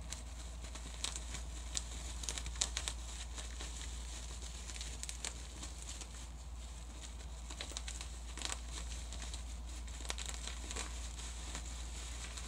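Plastic bubble wrap twisted and squeezed by hand: irregular sharp pops in clusters over constant crinkling of the plastic. The pops are thickest in the first three seconds.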